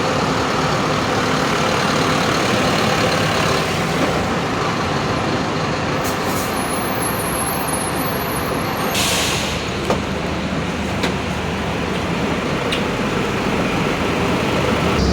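Mercedes-Benz OF-1721 BlueTec 5 bus diesel engine running steadily, heard from inside the cabin. About nine seconds in there is a short hiss of compressed air from the air system, followed by a couple of light clicks.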